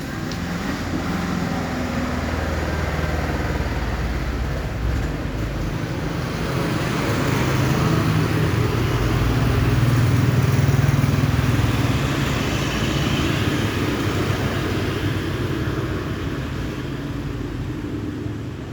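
Motor vehicle engine passing by: a low engine hum with road noise that grows louder to a peak around the middle and then fades away.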